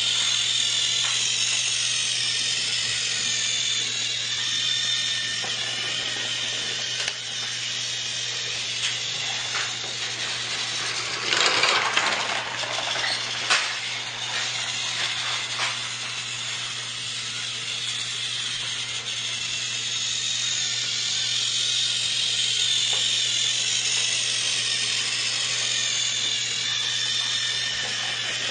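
Battery-powered toy train's small motor whirring steadily as it runs along the track, swelling and fading slowly. A louder rattling stretch comes about twelve seconds in, ending with a sharp click.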